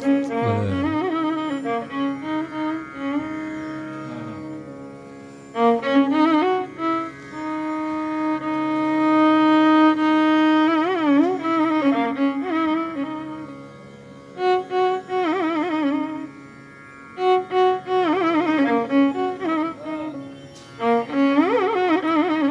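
Instrumental background music: a bowed string instrument playing a slow melody of long held notes with wavering slides between pitches, in phrases separated by short pauses.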